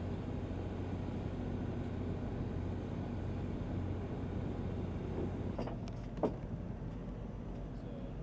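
Steady low mechanical hum of an idling engine, its deepest tone dropping out about two-thirds of the way through. A few sharp clicks and one louder knock come just after.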